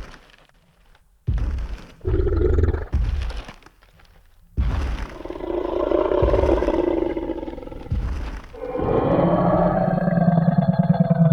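Tyrannosaurus rex roar sound effect: a run of deep growls and roars with heavy low thuds, ending in one long roar that cuts off sharply near the end.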